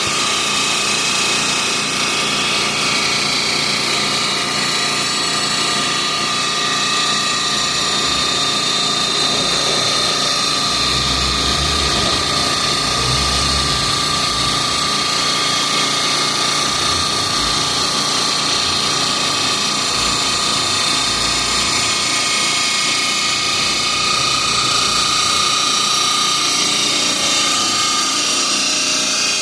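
CNC machine's spindle cutting Crema Marfil marble: a steady high-pitched whine that drifts a little in pitch, with some low rumbling about a third of the way in.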